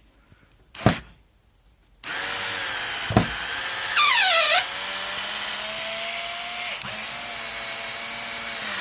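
Hikoki DB3DL2 3.6-volt cordless screwdriver running in its low speed range, driving a screw. A click just under a second in, then the motor starts about two seconds in and runs steadily to the end, with a brief louder squeal falling in pitch about four seconds in.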